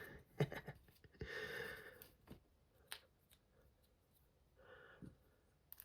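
Small clicks of ball bearings being pressed into plastic RC-car front uprights and the parts being handled, with a couple of soft breaths.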